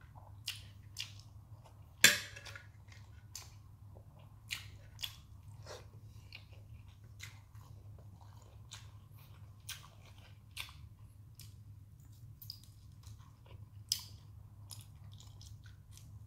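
Close-up eating sounds: a person chewing food with wet mouth clicks and lip smacks scattered through. One sharp knock about two seconds in is the loudest sound. A low steady hum lies underneath.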